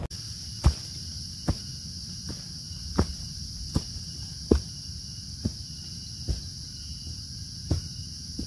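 Footsteps on a dirt forest trail, about one step every three-quarters of a second, over a steady high-pitched chorus of insects.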